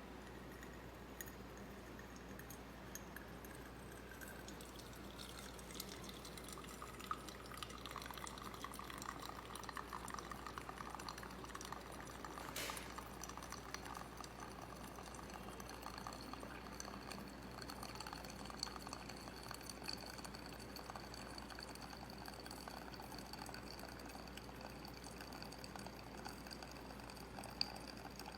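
Liquid being poured steadily into a container, faint, with a sharp click about halfway through.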